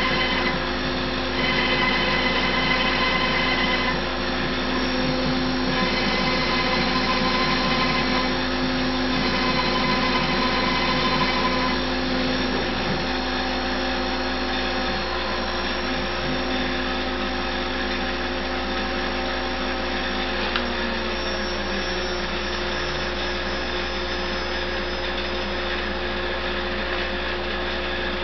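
Router on a CNC router table running as the machine countersinks holes in a spoil board, its whine shifting in stretches during the first twelve seconds. About twenty seconds in, one tone slides down in pitch and the noise settles into a steady machine hum.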